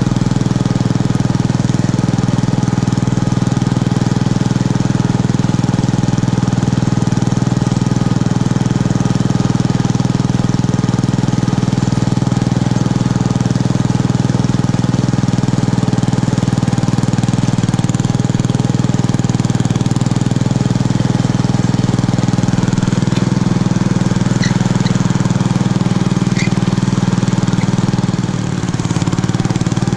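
Homemade garden tractor's 6.5 hp engine running steadily under load while it pushes wet snow with a front plow blade; the engine note dips briefly near the end.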